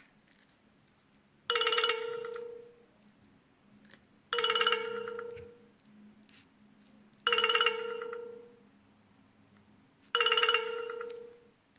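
Nokia C6-00 ringtone: a bell-like chime sounding four times, about every three seconds, each one dying away over about a second.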